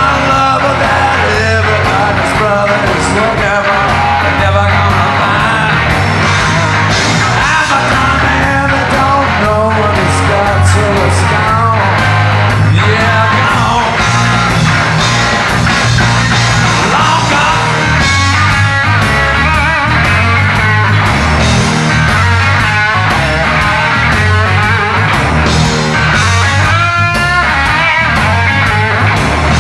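Blues-rock band playing live, with electric guitar lines that bend and waver in pitch over a steady low bass line.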